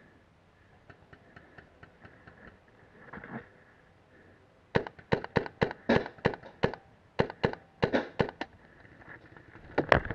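RAP4 468 paintball marker firing a rapid string of about fifteen sharp shots in two quick bursts, then one more loud shot near the end.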